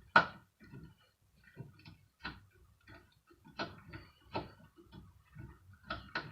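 Hand screwdriver turning screws out of a metal hand dryer housing: a string of irregular light metal clicks and ticks, with a sharper click just after the start.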